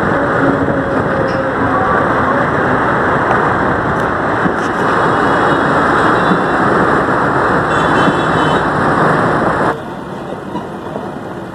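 Steady, loud road-traffic noise from a busy main road. It drops suddenly to a quieter background near the end.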